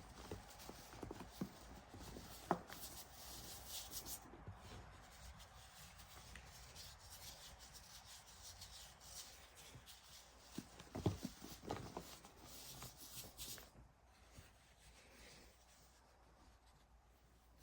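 Soft, dusty baking soda being rubbed and crumbled by hand: a faint, dry rustle with a few small sharp crunches, one about two seconds in and a few more around eleven to twelve seconds.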